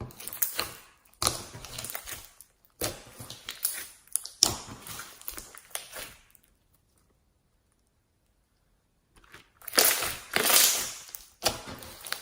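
Slime being squeezed and pressed by hand, giving crackling, crunchy bursts, each about a second long. A pause of two to three seconds comes past the middle, then a louder burst near the end.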